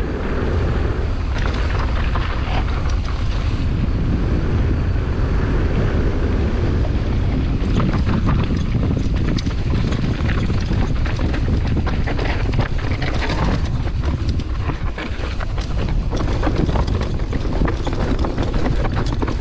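Mountain bike descending a rough, rocky downhill track at speed: wind rushing over the camera microphone and tyres rumbling over rock, with frequent knocks and rattles from the bike.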